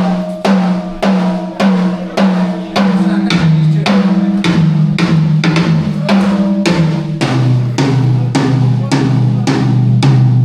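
Tom drums of a drum kit struck over and over for a soundcheck, heard through the venue PA, starting on the first rack tom. The hits quicken to about three a second, and the drum's pitch steps lower twice, about three and seven seconds in, as the drummer moves down to lower toms.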